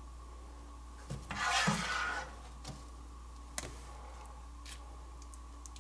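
Kitchen utensils and dishes handled: a short scrape of about a second with small knocks around it, then a few single sharp clicks.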